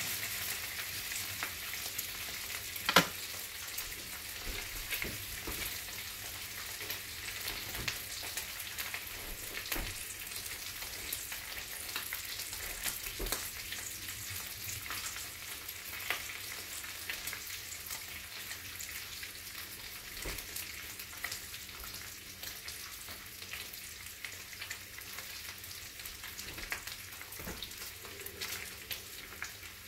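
Thick-cut bacon frying in a skillet on a gas burner: a steady sizzle with scattered crackles and pops of spitting grease. A sharp pop about three seconds in is the loudest.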